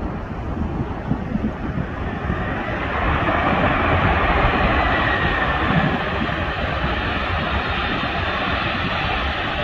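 The four jet engines of a landed Boeing 747-400 running as it rolls down the runway, a broad rushing hiss that grows louder about three seconds in and then holds steady. Wind buffets the microphone throughout.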